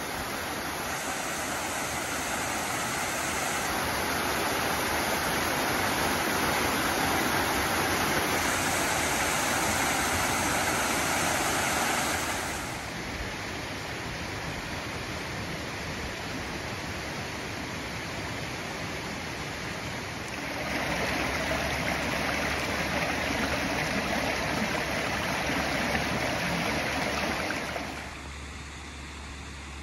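Water rushing steadily: waterfalls spilling over a stone dam and a shallow creek running over rocks. The rush drops in level about twelve seconds in, swells again around twenty seconds, and drops once more near the end.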